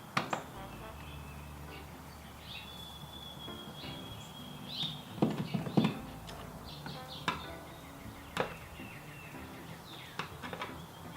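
Scattered sharp clicks and taps of a screwdriver working the screws of a Mazda Miata's outside door handle, over faint background music with held notes.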